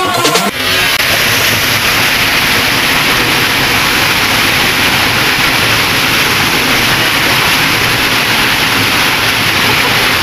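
Small waterfall pouring into a rocky pool: a loud, steady rush of churning water.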